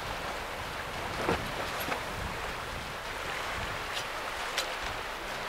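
Steady rush of wind and choppy water around a Westerly Centaur sailing yacht under way, with a few brief sharp ticks.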